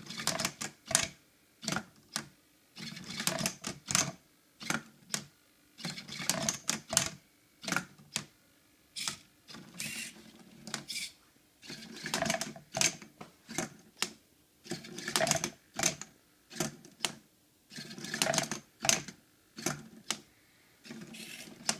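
Hobby servos of a homemade Rubik's cube solving robot, the flipper, holder and rotate servos, whirring and clacking in short bursts of about a second or less with brief pauses between, as they turn and flip the cube move after move.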